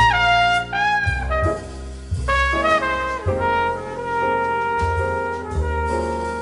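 Music led by a trumpet and other brass, playing held notes that change every second or so over a low rumble.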